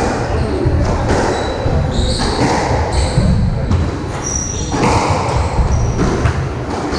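Squash rally: the rubber ball cracking off rackets and the court walls again and again, with players' footsteps thudding and shoes giving short squeaks on the wooden floor.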